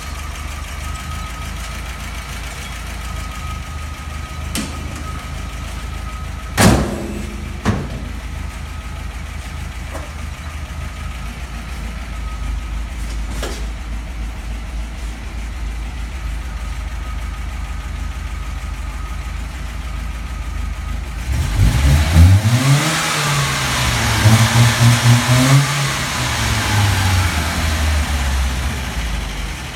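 1979 MGB's 1.8-litre four-cylinder engine idling steadily. Two sharp knocks come a few seconds apart early in the idle. Near the end it is revved up, held briefly and let fall back toward idle.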